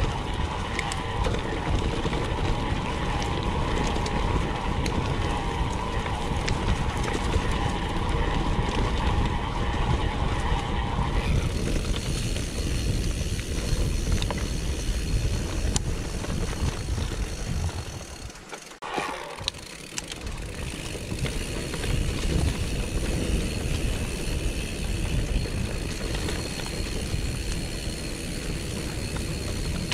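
Mountain bike rolling along a gravel and concrete track: steady tyre rumble and wind buffeting on the microphone, which drop away briefly about two-thirds of the way through.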